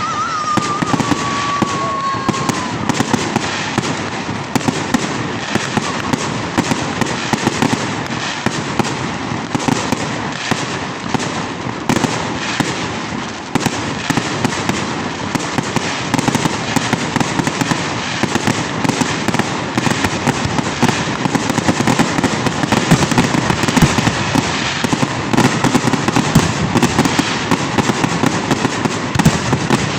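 Fireworks going off in a rapid, unbroken barrage of bangs and crackles. A whistle falls slowly in pitch over the first few seconds.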